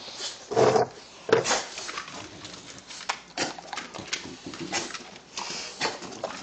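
A dog eating food offered by hand: irregular chewing clicks and snuffling, with rustling close to the microphone.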